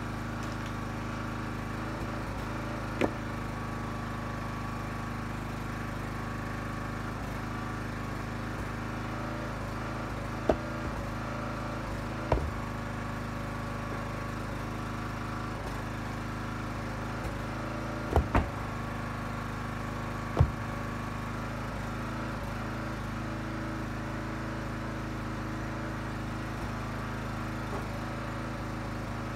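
Huskee 35-ton log splitter's small gas engine running steadily while ash blocks are split. A handful of sharp cracks and knocks from the wood stand out above it, including a close double knock just past the middle.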